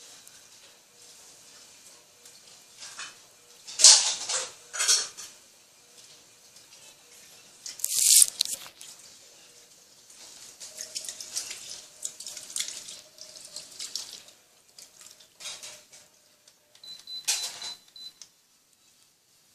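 Water splashing in the tub of an Electrolux Turbo Economia 10 kg top-loading washing machine washing two heavy blankets, in irregular loud bursts.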